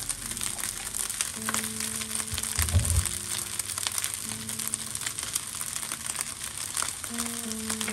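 Fried rice sizzling in a nonstick wok while shredded lettuce is tipped in and stirred through with a silicone spatula: a steady crackling hiss full of small ticks, with a low thump just under three seconds in.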